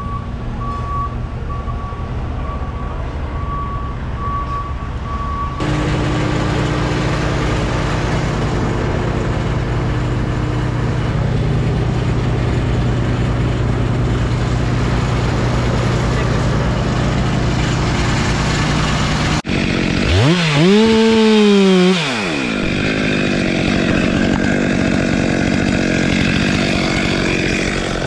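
An engine idles steadily. It revs up and falls back once, over about two seconds, near 20 to 22 seconds. In the first few seconds a construction vehicle's reversing alarm beeps in a steady repeating tone.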